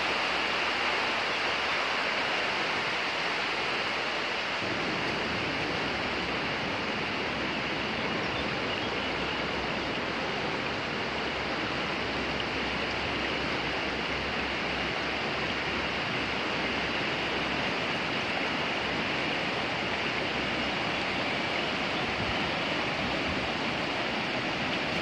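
Steady rush of a swollen river in flood, its muddy water running over its banks and across the fields.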